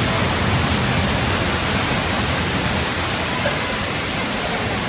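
Staged flash-flood effect: a torrent of water rushing and splashing beside the tram, a loud, steady rush.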